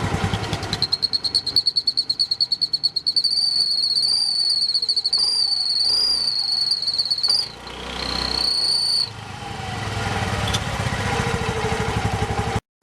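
Honda Activa scooter engine revved with a turbo whistle fitted in its exhaust. The whistle gives a loud, high, steady whine that wavers slightly, breaks off about seven and a half seconds in, and sounds again briefly before the engine settles lower.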